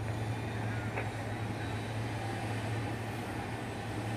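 A steady low mechanical hum over a constant background rush, with a faint click about a second in.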